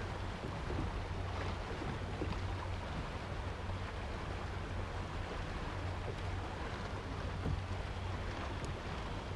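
Steady wind and small waves lapping against the hull of a small open boat, over a low steady rumble.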